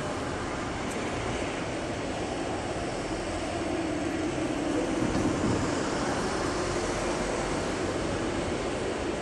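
Steady rumble of city street traffic, swelling slightly in the middle and then easing, with no single distinct event.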